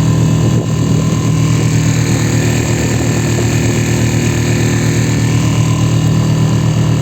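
Mercury 3.5 hp outboard motor running steadily at a constant speed.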